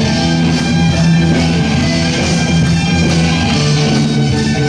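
Loud music played through a DJ's sound system.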